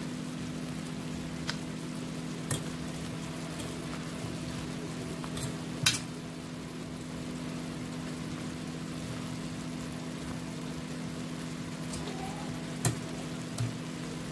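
Chicken pieces sizzling in their own released juices in a stainless steel Saladmaster skillet with no oil, over a steady low hum. A few sharp clinks of a spatula against the pan break in, the loudest about six seconds in.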